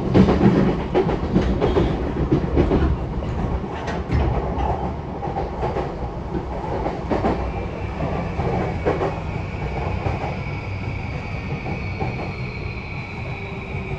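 JR East E235-0 series Yamanote Line electric train heard from inside the car, with wheels clacking over rail joints over a steady rumble. The clacks fade and the running noise grows quieter as the train slows for a station. From about halfway a steady high whine comes in, and later a slowly falling tone, from the traction motors' inverter under braking.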